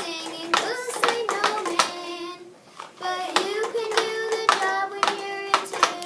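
A voice singing held, wordless notes, broken up by sharp claps, with a short pause about two and a half seconds in.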